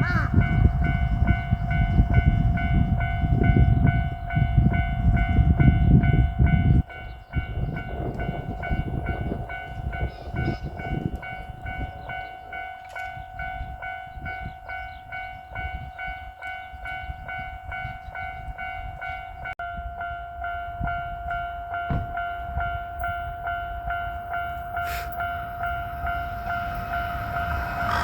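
Japanese level-crossing alarm ringing its repeating electronic bell steadily, warning of an approaching train. Under it a heavy low rumble fills the first seven seconds and cuts off abruptly. The noise swells again near the end as the train draws near.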